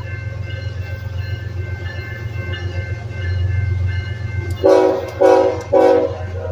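Diesel locomotive idling with a steady low rumble, then its air horn sounds three short blasts in quick succession about four and a half seconds in.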